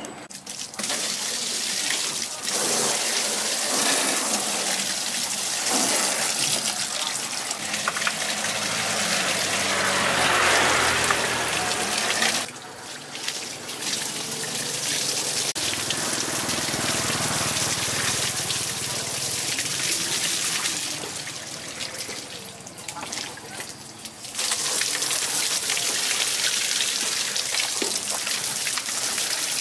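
Water spraying hard in a steady hissing jet, stopping briefly about twelve seconds in and again for a couple of seconds a little past twenty seconds in.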